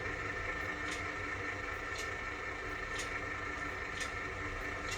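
Vehicle engine running steadily, heard from inside the cab, with a short sharp tick about once a second.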